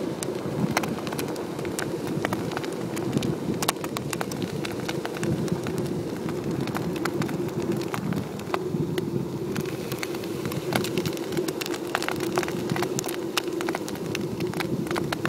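Kite buggy's wide balloon tyres rolling over a beach covered in shells, crushing them in a dense run of crunching crackles over a steady low rumble.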